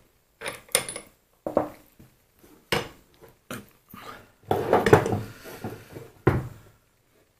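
Small metal parts of a mini lathe's apron clinking and clattering as they are handled and put together: a run of irregular knocks, busiest about two-thirds through, stopping shortly before the end.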